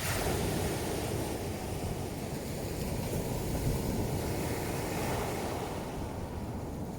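Ocean surf breaking and washing up a pebble beach, a loud rushing surge that comes in suddenly and holds for several seconds before easing.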